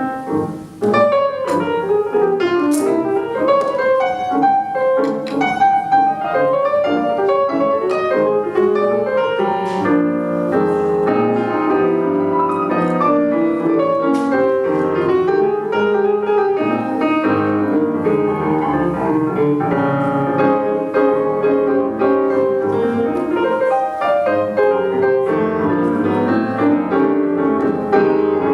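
Piano music playing, a continuous flow of many notes.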